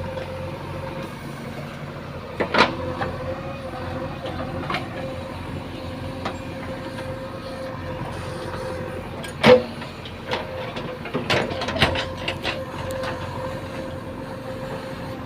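JCB 3DX backhoe loader's diesel engine running steadily with a held whine, broken by a few sharp knocks, the loudest about nine and a half seconds in.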